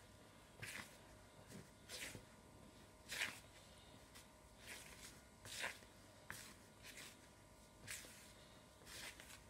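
Fingers rubbing butter into flour in a plastic mixing bowl: faint, soft, irregular swishes of hand on flour and bowl, about one a second.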